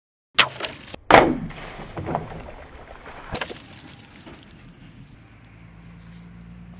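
Heavy forged steel cleaver chopping through full plastic water bottles on a wooden table: a sharp strike about half a second in and a louder one a moment later, followed by water splashing and gurgling out, then another sharp hit about three seconds in and water trickling off the table.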